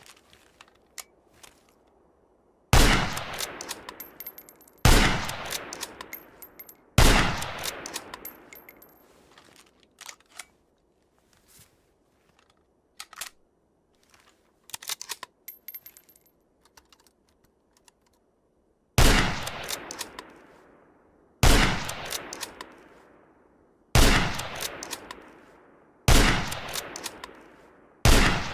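Sako TRG 22 bolt-action rifle firing eight shots, each with a long echoing decay. The shots come in two runs, three and then five, about two seconds apart, with small clicks between and a longer run of clicks in the middle.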